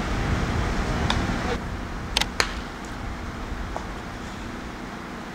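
Sharp knocks of a baseball being struck and caught during infield fielding practice: one about a second in, two close together a little past two seconds, and a fainter one near four seconds, over a low rumble that drops away about a second and a half in.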